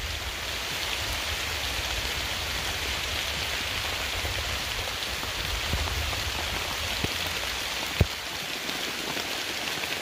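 Steady rain falling, a constant even hiss, with one sharp tap about eight seconds in.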